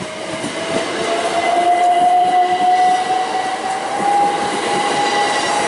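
Southern Class 377 Electrostar electric multiple unit passing at close range, wheels running over the rails, with a single whining tone that climbs slowly in pitch throughout as the train picks up speed. The noise builds over the first two seconds and then holds steady.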